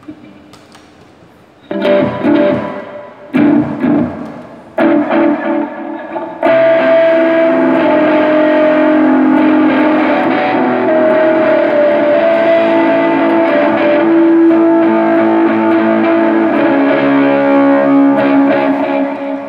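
Electric guitar played through a Zoom GFX-4 multi-effects processor: three separate strikes left to ring and die away, then continuous playing from about six seconds in, fading out near the end.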